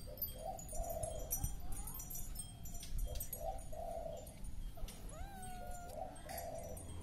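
Doves cooing in repeated low phrases, with faint high chirping from small birds. A kitten mews once with a rising, drawn-out call about five seconds in.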